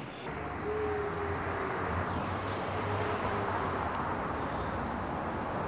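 Steady outdoor background noise with a low rumble, growing louder about half a second in and then holding level.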